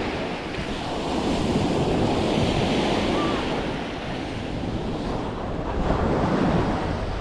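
Sea waves washing onto the shore in a steady rush, with wind buffeting the microphone.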